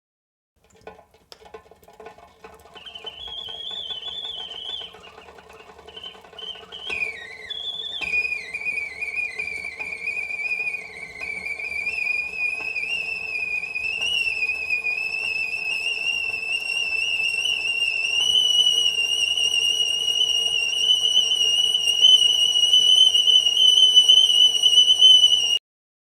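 Whistling kettle coming to the boil: a faint wavering whistle a few seconds in, then a steady high whistle that slowly grows louder and cuts off suddenly near the end.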